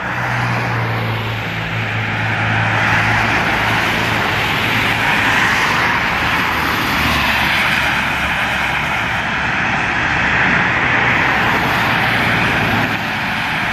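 Road traffic on a wet road: a steady hiss of tyres on wet asphalt over a low engine hum.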